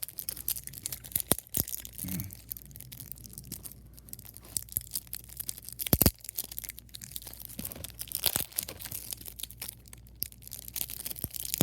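Packaging on a Yu-Gi-Oh! card deck being picked at, torn and crinkled open by hand: a long run of irregular crackles and small snaps, with a sharper snap about six seconds in.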